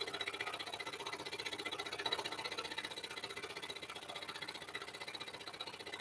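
Axminster Trade EX-16 scroll saw running, its blade stroking up and down in a fast, even buzz as it cuts slowly through a thick wooden block.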